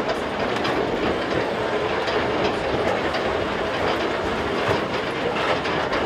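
Reichenbachfall funicular car running along its rails: a steady running noise with occasional clicks from the wheels and track.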